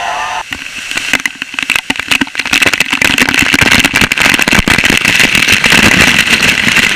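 Waterfall water crashing right at the microphone: a dense, crackling rush full of sharp clicks that builds to very loud about two and a half seconds in.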